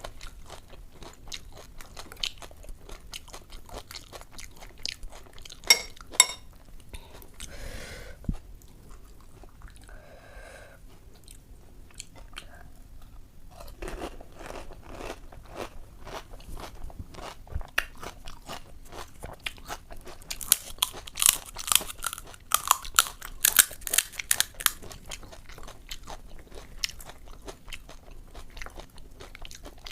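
Close-up crunching and chewing of puchka (panipuri), the crisp hollow fried shells filled with ghugni, cracking between the teeth as an irregular run of crackles. The crunching eases off for a few seconds near a third of the way in, then comes back loudest in a dense burst of sharp crackling about twenty seconds in.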